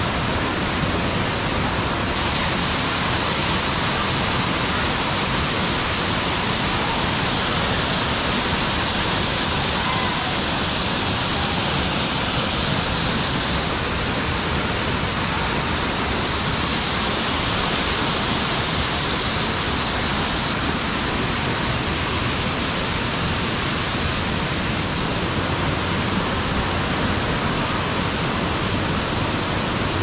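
A waterfall's falling water, a steady rush.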